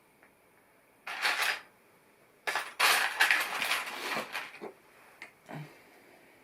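Loose plastic LEGO pieces clattering: a short rattle about a second in, then a longer jumble of clatter and a few small clicks.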